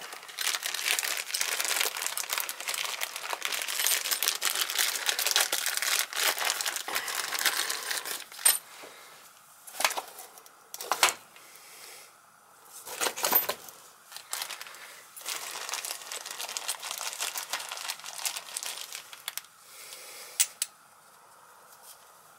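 Clear plastic parts bag crinkling as it is handled and opened, dense and continuous for the first several seconds. After that come a few separate rustles and sharp clicks from parts being handled.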